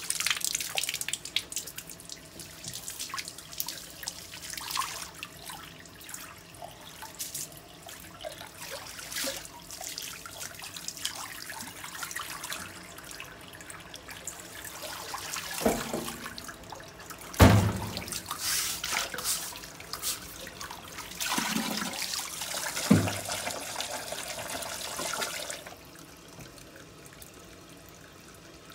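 Water from a hose splashing and running over a concrete floor and into a floor drain, flushed through to clean around the drain after unclogging. A few knocks come in the middle, the loudest about two-thirds of the way in, and the running water stops near the end.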